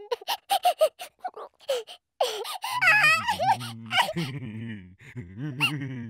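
Nonverbal cartoon character vocalising in gibberish: a quick run of short voiced sounds, then from about two seconds in a longer wavering high-pitched cry over a lower, steadier groaning voice that fades near the end.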